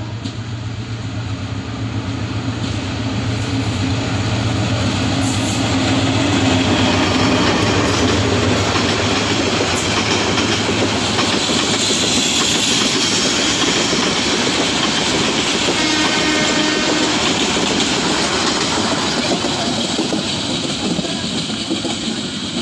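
Diesel-hauled passenger train passing close by: a low engine hum as the locomotive nears, giving way to the steady rumble and clickety-clack of the coaches' wheels on the rails, loudest in the middle and easing a little towards the end.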